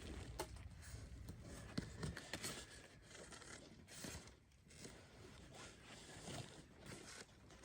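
Faint scraping, ripping and clicking of a cardboard shipping box being opened and handled, with a few sharper clicks scattered through.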